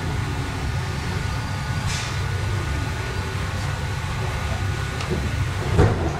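Inside a Swiss S-Bahn train coming to a stop at a station: a steady low rumble with a faint steady hum, a brief hiss about two seconds in, and a single sharp thud near the end.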